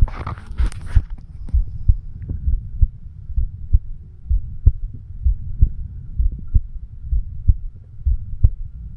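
A 36-year-old man's heart beating, heard through a homemade microphone stethoscope on the chest: steady lub-dub pairs of low thumps about once a second, with a faint steady hum. Scratchy handling noise sounds over the first second.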